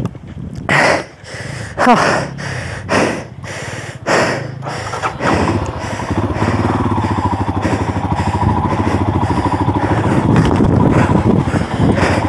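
A motorcycle engine that comes in about five seconds in and then runs steadily with a fast, even pulse. Before it come a few short, irregular noises.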